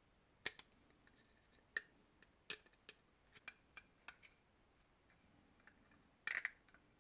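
Faint, scattered clicks and taps of a 3D-printed plastic can cap being handled while a rubber band is fitted to it, with a quick run of several clicks near the end.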